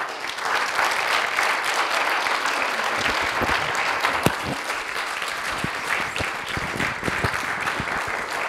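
Audience applauding steadily. Partway through, a few dull knocks come from a clip-on lapel microphone being handled.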